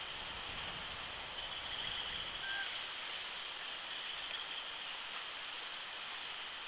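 Steady rushing outdoor background noise, without a clear event, on the nest camera's microphone. One short, faint chirp comes about two and a half seconds in.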